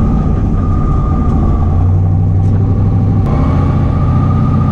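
Twin-turbo Camaro drag car's engine idling, heard from inside the caged cabin: a steady low rumble with a thin steady whine above it, and a small click about three seconds in.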